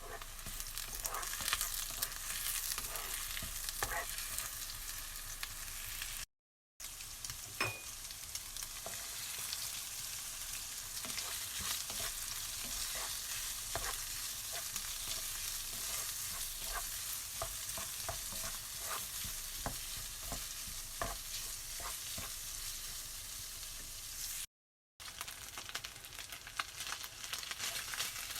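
Food sizzling and frying in a pan, with scattered crackles and the clicks and scrapes of stirring; the sound cuts out briefly twice.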